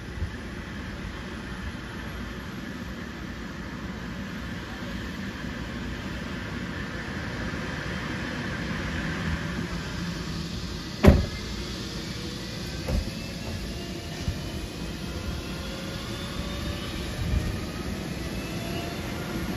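MD 902 Explorer rescue helicopter's turbine engines running on the ground, a whine rising steadily in pitch through the second half as they spool up. A sharp knock about halfway through and a few softer thumps follow.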